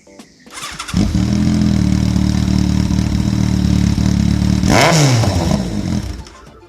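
Kawasaki ZRX1200 DAEG motorcycle's inline-four engine is started: the starter cranks briefly, it catches about a second in and idles steadily. A single throttle blip comes near five seconds and falls back, then the sound fades out.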